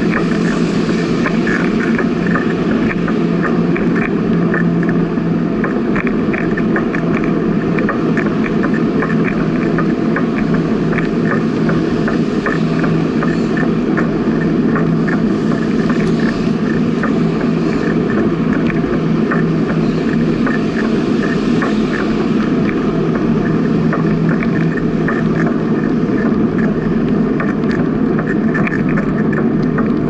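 Steady riding noise of a bicycle on an asphalt path at about 17 km/h: tyres rolling and wind on the bike-mounted camera's microphone, with a low hum and light rattling ticks throughout.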